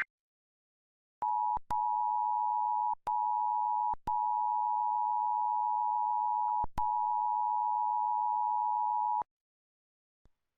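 Emergency Alert System attention signal: the two-tone 853 and 960 Hz alarm tone, held steady for about eight seconds with four brief dropouts, starting about a second in and cutting off sharply.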